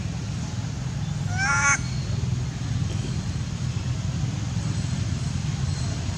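A long-tailed macaque gives one short cry that bends in pitch, about a second and a half in, over a steady low rumble.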